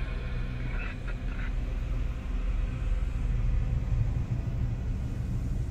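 Car cabin noise while driving: a steady low rumble of engine and tyres on a rough dirt road.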